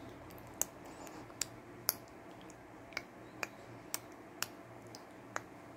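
A series of about eight short, sharp clicks at irregular intervals, roughly half a second to a second apart, over a quiet room.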